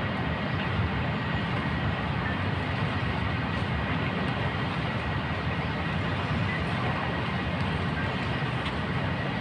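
Steady, even rumbling noise, with a faint high steady tone running through it.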